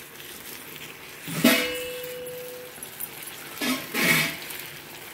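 Wooden spatula stirring curry in a nonstick pan and knocking against the pan twice, about a second and a half in and again near four seconds. The first knock leaves the pan ringing briefly.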